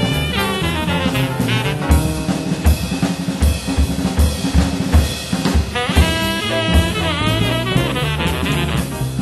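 Small jazz group playing: a saxophone carries a wavering melodic line over drum kit and double bass.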